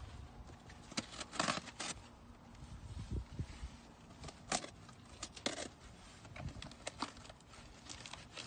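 Packing tape on a cardboard shipping box being slit with a small blade and the flaps pulled open: a series of short scraping rips and sharp clicks, the longest rips about a second in and again around four and a half and five and a half seconds.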